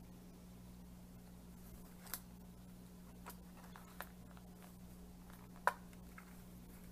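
Light handling of a leather knife sheath: a few faint clicks and rubs as a folded pocket knife is slid into it, then a sharper click near the end as the sheath's snap fastener is pressed shut. A faint steady hum runs underneath.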